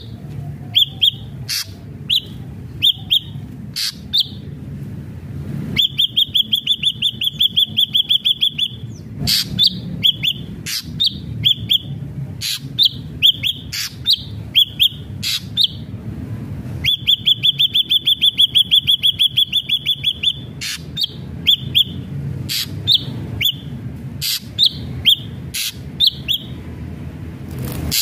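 Ashy drongo singing: a string of short whistled notes, each with a sharp click at its start, broken twice by a long rapid trill of about three seconds. A steady low hum runs underneath.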